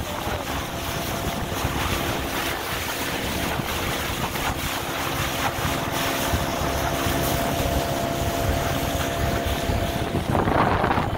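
Small speedboat's engine running steadily under way, with wind buffeting the microphone and water rushing past the hull.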